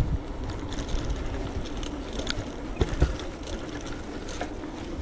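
Electric bike being ridden: a steady low rumble from tyres on the path, with irregular light ticking and rattling from the bike's freewheel and frame and a faint steady hum.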